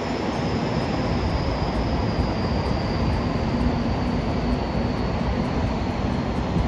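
A train running past with a steady rumble and a thin high whine that slowly falls in pitch.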